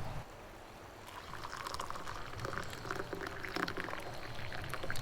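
Liquid being poured into a container, starting about a second in.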